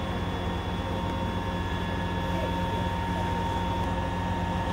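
Fire engine's pump engine running steadily under load, a constant hum with a thin high whine, as it feeds a hose jet of water.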